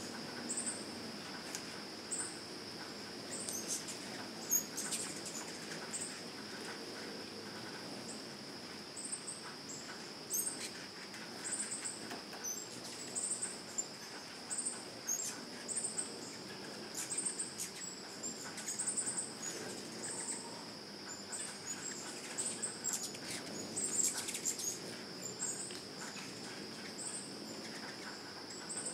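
Insects singing steadily in the trees: a constant high drone with a short high chirp repeating about once a second. Hummingbirds at the feeders add scattered sharp chips.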